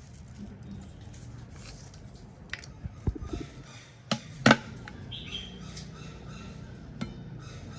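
Several sharp knocks and taps of kitchen work, such as a knife or utensils on a board or pot, the loudest about four and a half seconds in.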